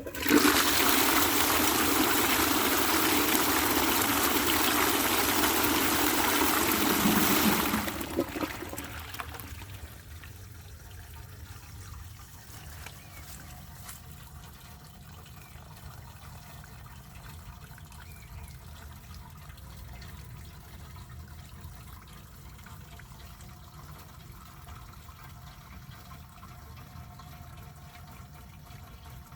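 Water rushing loudly through a 1952 Adamsez cast iron toilet cistern as it is tried out. The rush lasts about eight seconds, dies away, and leaves a faint trickle.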